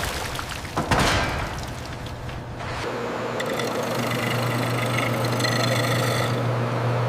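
A sharp knock about a second in, then a steady mechanical hum that sets in about three seconds in and holds.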